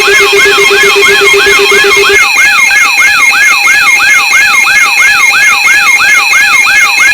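Electronic alarm siren warbling up and down about three times a second, layered over steady high beeping tones. A lower rapid beep drops out about two seconds in.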